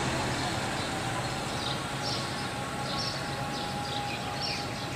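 Steady outdoor road noise with a low hum, and short high chirps repeating from about a second and a half in.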